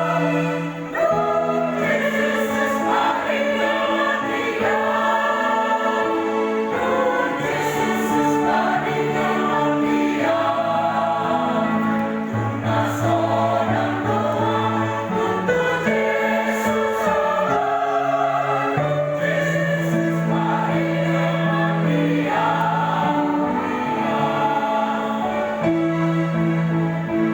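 A church choir singing in parts, several voice lines holding and moving between sustained notes together.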